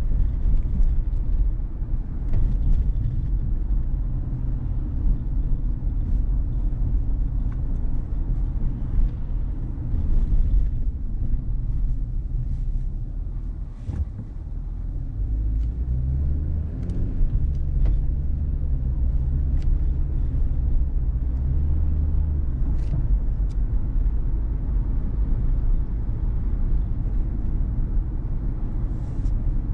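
Car driving: a steady low rumble of engine and tyres, dipping briefly about halfway through and then swelling with a deeper engine hum for several seconds.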